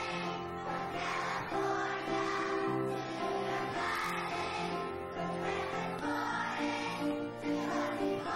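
Young children's choir singing a song together, the voices holding notes and moving in a steady tune.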